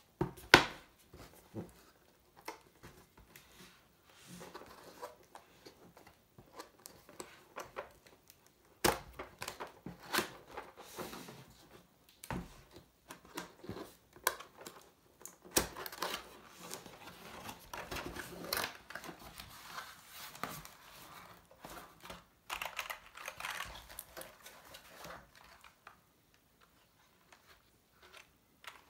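A cardboard keyboard box and its packaging handled and opened: irregular knocks, scrapes and rustling, with a sharp knock about half a second in.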